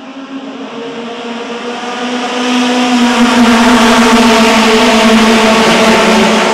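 A pack of Mazda MX-5 Cup race cars at full throttle on the green-flag start, their four-cylinder engines passing in a dense, steady drone. It grows louder as the field nears and is loudest from about three seconds in.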